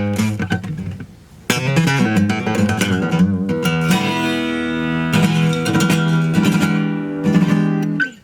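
Acoustic guitar strummed in chords, dropping away about a second in and coming back in half a second later; the playing stops abruptly at the end.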